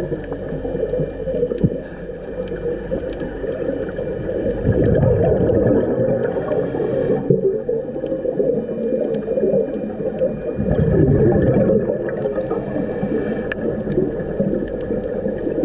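Scuba regulator breathing heard underwater: two rounds of exhaled bubbles gurgling, about five seconds in and again just past halfway, each with a brief hiss, over a steady underwater wash with scattered faint clicks.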